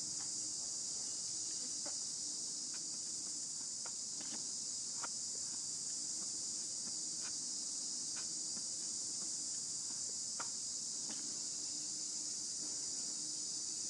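Steady, unbroken high-pitched drone of insects in chorus, with a dozen or so faint, irregular clicks scattered through it.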